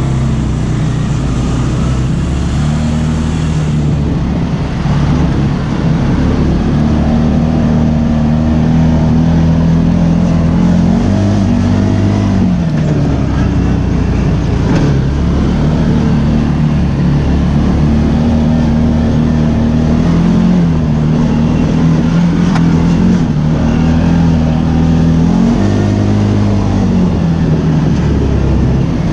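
ATV engine running under way, its pitch holding steady for long stretches and briefly rising and falling with the throttle, about eleven seconds in and again about twenty-five seconds in.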